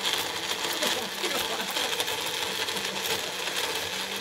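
Magic Bullet personal blender running steadily, its motor whirring as it blends a thick smoothie mix with hard dog-biscuit pieces in it.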